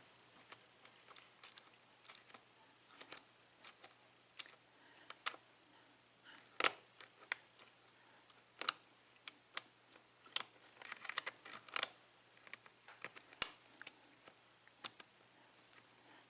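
Lock pick working the pin stack of a Yale six-pin mortise cylinder lock under tension: faint, irregular small metallic clicks and scrapes as pins are lifted and set, with a quick run of clicks about eleven seconds in.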